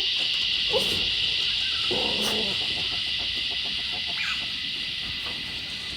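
Dense chorus of cicadas: a steady, loud, high hiss. A few short animal calls sound over it, the loudest about two seconds in.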